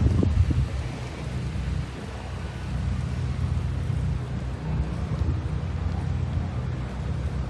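Hurricane wind and rain, the wind buffeting the microphone as a steady low rumble that is strongest at the start and eases about a second in.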